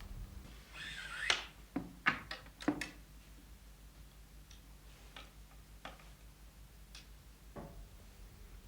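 Faint clicks, taps and a short rustle about a second in: hands fitting self-adhesive grinding discs onto valve-grinder grinding heads, over a low steady hum.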